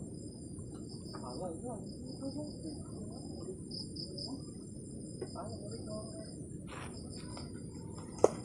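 Insects, crickets by the sound of it, chirping steadily in a high-pitched trill with pulsing bursts, over a constant low outdoor hum. A single sharp click comes near the end and is the loudest sound.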